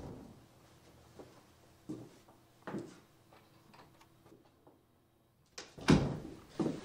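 Soft knocks and footsteps of a man opening a door and walking through the doorway, over a faint steady room hum. After a brief dropout just before five seconds in, a few louder thumps follow.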